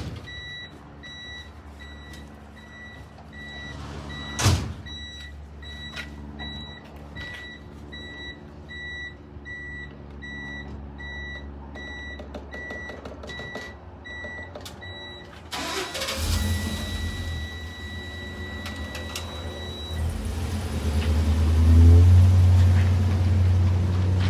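Vehicle backup alarm beeping at a steady rate of about two beeps a second, with one sharp knock about four seconds in. The beeping stops about two thirds of the way through and a truck engine starts running nearby, getting louder near the end.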